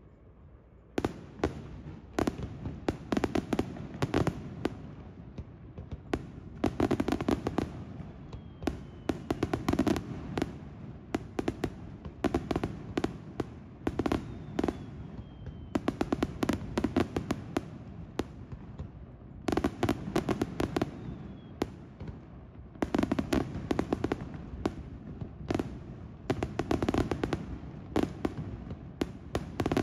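Daytime aerial fireworks display: rapid volleys of sharp bangs and dense crackling from shells bursting overhead, coming in waves of clustered reports that start about a second in. A faint falling whistle is heard now and then among the bangs.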